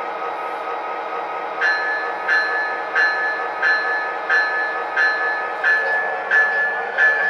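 O-gauge model train rolling along three-rail metal track with a steady rumble. From about a second and a half in, regular clicks come about one and a half times a second, each with a brief metallic ring.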